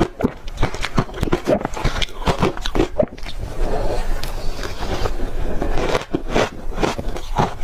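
Close-up biting and chewing of soft crushed ice: rapid, irregular crunches several times a second, with a denser stretch of continuous grinding crunch in the middle.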